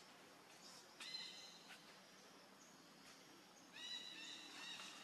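Two high-pitched animal calls, each held on an even pitch: a short one about a second in and a longer one near the end.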